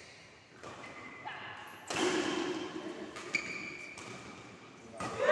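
Indistinct voices echoing in a badminton hall, with a few short, sharp knocks from play on the courts.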